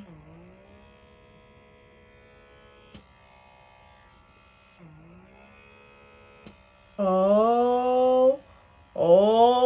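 Handheld blackhead pore vacuum's small electric motor running with a faint steady hum; its pitch sags and recovers near the start and again about five seconds in. Near the end the hum is drowned by a woman's drawn-out wordless "ooh" rising in pitch, then a long "oh".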